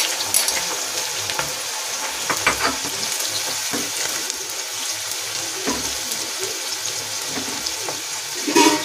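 Sliced onions deep-frying in hot oil in a kadhai, a steady, dense sizzle and crackle. A wire skimmer stirring them knocks against the pan now and then, with a louder clatter near the end.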